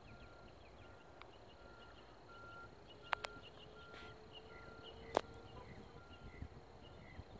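Faint evening insect chirping, with a short high-pitched note repeating roughly twice a second. Three sharp clicks stand out, two close together about three seconds in and one about five seconds in.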